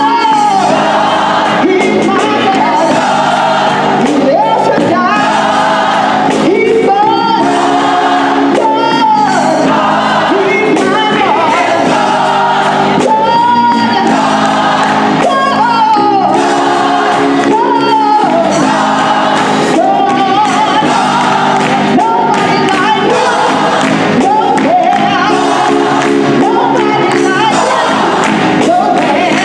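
Gospel choir singing, with a woman soloist's voice swooping and sliding above the sustained choir harmonies, and the choir clapping along.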